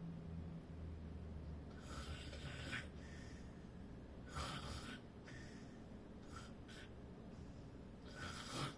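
Faint snoring: four rasping breaths, each under a second and about two seconds apart, with a couple of short snuffles in between.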